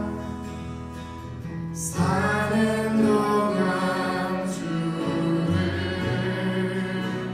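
Worship band music with singing: sustained chords under voices, a louder sung phrase coming in about two seconds in.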